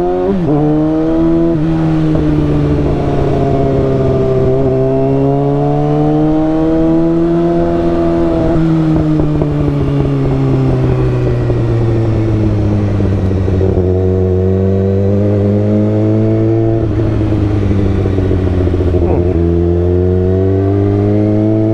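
2015 Kawasaki ZX-6R 636's inline-four engine through a Racefit aftermarket exhaust while riding. The note rises at the start, holds for several seconds, then eases down slowly about halfway through and settles at a lower, steady pitch.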